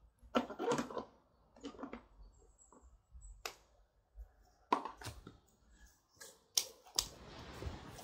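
Irregular clicks and knocks from a garden hose and bucket being handled, a few sharp taps scattered among quieter rustles. A soft hiss comes in near the end.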